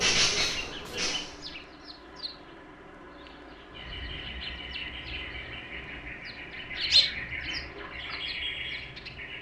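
Small birds chirping and twittering in many quick, overlapping calls. There are harsh rasping bursts in the first second or so, and one louder call about seven seconds in.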